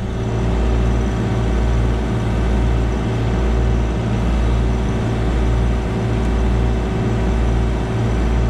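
John Deere 1025R compact tractor's diesel engine running under heavy load, pulsing slightly, while its front-loader hydraulics lift a large tree stump. A steady whine joins the engine right as this begins.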